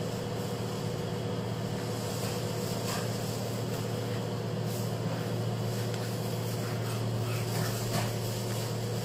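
A steady low hum, with a few faint soft knocks from pieces of marshmallow biscuit and a knife being handled on a wooden cutting board.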